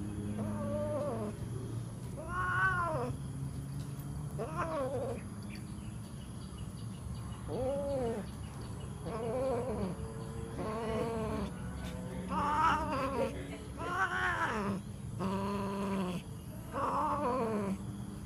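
Domestic cats caterwauling while mating: a string of drawn-out yowls, each rising and then falling in pitch, coming closer together in the second half.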